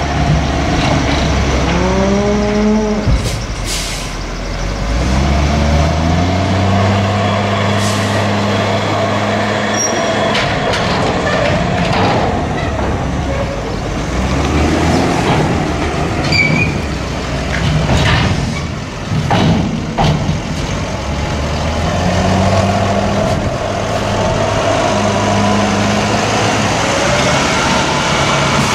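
A New Holland tractor's diesel engine revving up and running under load as it tips and then lowers a silage dump trailer, then pulling away with the trailer. A few sharp bangs come between two thirds and three quarters of the way through.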